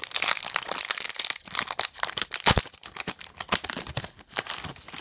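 A trading-card pack's wrapper being torn open and crinkled by hand: a dense run of crackling with sharp crinkles, loudest about halfway through.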